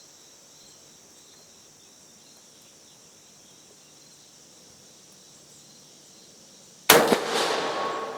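A single shot from a 6.5 mm Carcano M91 TS carbine about seven seconds in: a sharp crack followed by a long, fading echo. Before it there is only a faint steady hiss.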